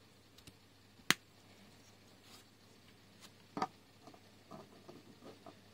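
Small plastic LEGO pieces clicking as the cat's head is snapped onto its ball joint: one sharp snap about a second in, then a duller knock of plastic on the wooden desk about three and a half seconds in as the finished cat is set down, with faint plastic ticks between and after.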